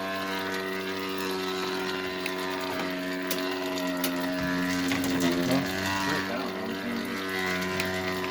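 Electrolux washing machine running with a steady drone of several even tones and a few light clicks, still going although it has been switched off and its power cut.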